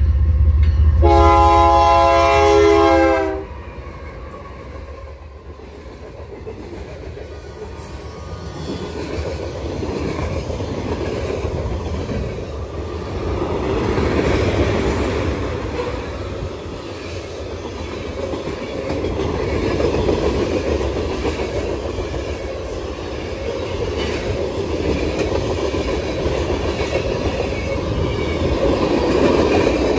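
Freight train passing: the locomotive's horn sounds a chord that cuts off about three seconds in, along with the heavy rumble of the locomotive. The freight cars then roll by with wheel clatter that swells and fades.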